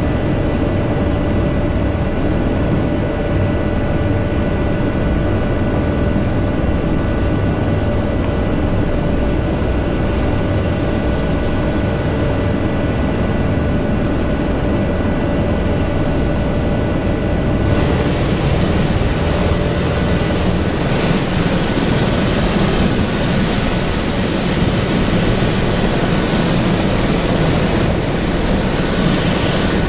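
Helicopter turbine engine and rotor running on the ground, a loud steady noise with a high turbine whine. About two-thirds of the way through the sound changes abruptly to a brighter, hissier version of the same running noise.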